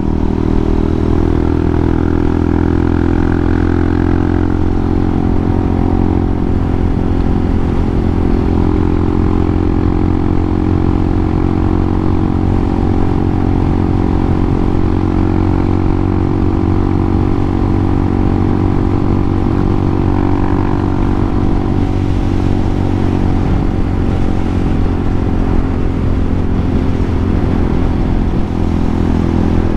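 Hawk 250 dual-sport's single-cylinder four-stroke engine running under way at a steady cruise, its note holding nearly constant.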